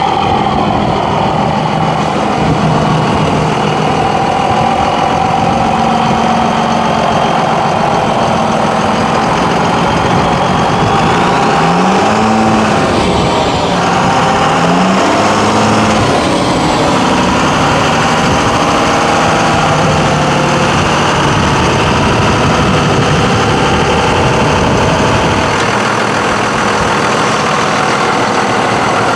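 Heavy-duty diesel engine of a Ford F650 truck idling through tall exhaust stacks, revved up and back down twice, about twelve and fifteen seconds in.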